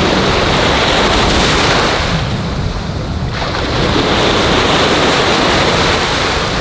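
Small waves breaking and washing over the shallows at the shoreline, in two surges with a lull between them about two seconds in, with wind on the microphone.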